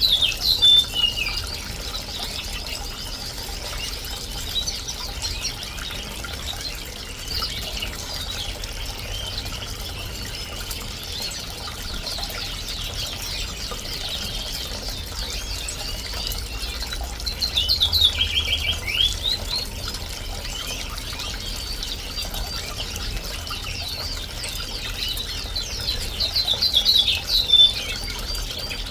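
Canaries and finches chirping and singing in quick trills over the steady trickle of a small bird-bath fountain. Louder bursts of song come about a second in, midway and near the end.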